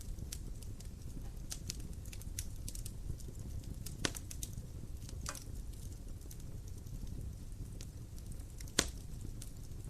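Fire in a fireplace crackling: irregular small snaps over a low steady rumble, with two sharper pops, about four seconds in and near the end.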